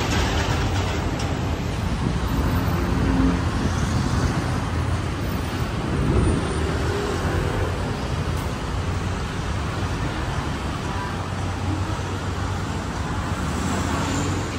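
Steady noise of traffic on a busy city road, cars and buses driving by.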